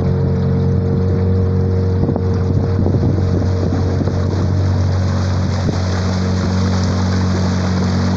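Small boat's outboard motor running at a steady cruising speed, with water rushing and splashing along the aluminium hull and wind on the microphone.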